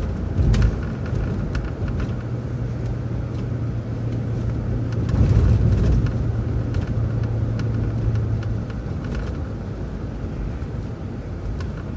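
City transit bus driving along the road: a low engine hum and road rumble, with scattered rattles and knocks. The hum swells briefly about halfway through and fades out about three-quarters of the way in.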